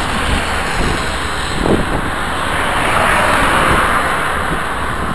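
Road traffic passing close, with steady wind rushing over a bicycle-mounted camera's microphone; the noise swells a little as a car goes by about three to four seconds in.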